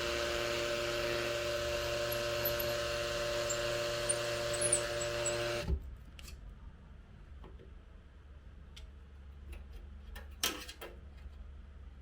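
Electric drill running at a steady speed for about six seconds, then stopping abruptly. A few light clicks and one sharp knock follow.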